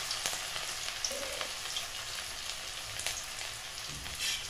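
Freshly added sliced ginger sizzling in hot mustard oil in a karahi, a steady hiss with scattered small pops and crackles.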